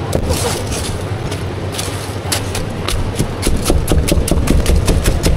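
A quick run of sharp knocks, about four a second, starting a little before halfway, over a steady low hum.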